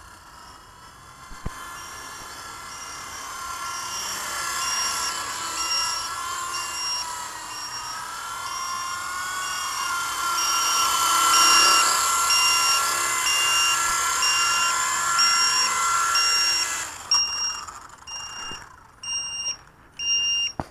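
WLtoys V912 RC helicopter's electric rotor motor whining, its pitch wavering as it flies in close, then cutting out about 17 seconds in. Throughout, a battery alarm beeps steadily, about every half second, warning that the flight battery is low. Near the end there are loud knocks and rustles.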